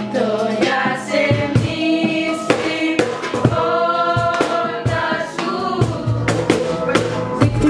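A small group of female voices singing together in a traditional-style European song, holding long notes, over a steady percussive beat.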